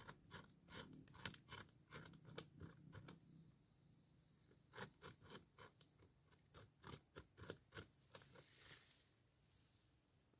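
North American beaver gnawing a tree trunk with its incisors: faint, irregular crunching clicks of teeth on wood, coming in quick runs with short pauses between.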